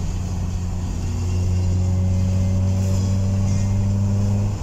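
Car engine and road noise heard from inside the cabin while driving, a steady low drone that grows a little louder about a second in.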